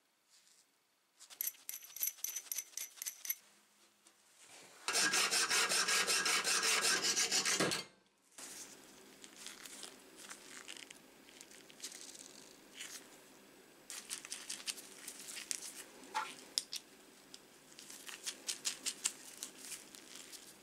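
Light metal clicks and clinks of nuts being turned onto a threaded steel bolt by hand. Earlier there is a run of rapid clicks, then a loud, harsh mechanical noise lasting about three seconds that cuts off suddenly.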